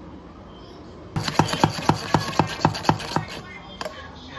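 A stainless steel milk frother worked in quick strokes, a rattling rasp with a sharp knock about four times a second, starting a little over a second in and stopping after about two seconds, then one more knock near the end.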